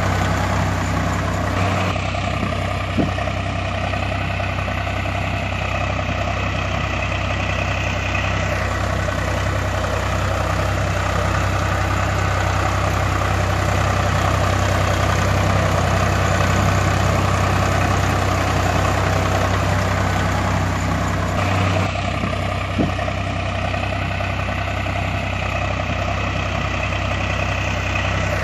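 Steady engine-like drone that idles evenly throughout, with a low hum and a regular pulse.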